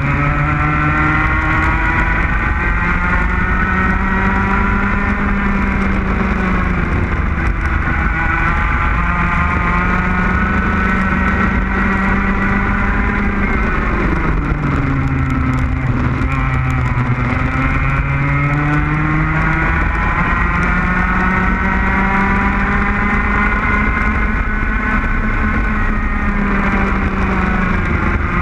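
Racing go-kart engine at speed, heard from on board, its pitch climbing along the straights and dropping several times as the kart slows for corners, then rising again.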